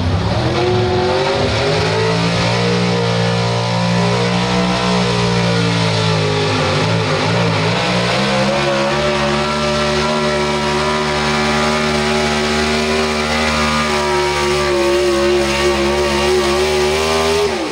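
Pro Stock 4x4 pulling truck's engine run hard through a pull. Its pitch climbs at the start, sags and recovers about six to eight seconds in, holds high, then falls away at the end as the throttle comes off.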